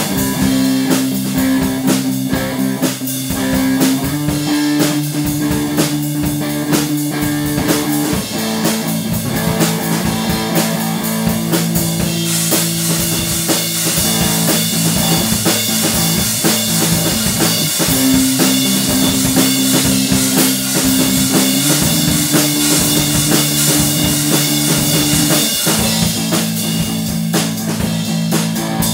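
Rock band playing: an amplified electric guitar holds chords that change every few seconds over a steady drum kit beat. The cymbals wash louder through the middle part.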